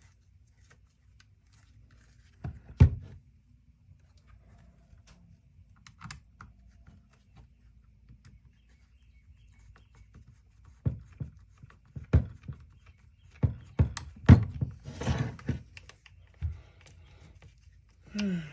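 Scattered knocks and clunks of small tool parts and a hand tool being handled on a workbench during disassembly of a cordless impact driver: one sharp knock about three seconds in, then a run of clunks and a short scrape in the second half.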